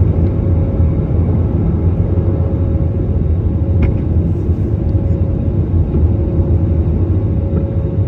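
Airbus A320neo cabin noise during the climb after takeoff, heard from a window seat over the wing: the steady rumble of its Pratt & Whitney geared turbofan engines with a steady hum above it. A single faint click about four seconds in.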